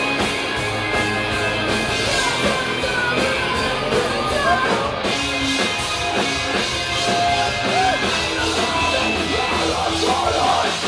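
Live heavy rock band playing loud, with shouted and sung vocals over distorted guitar and drums, heard from within the crowd.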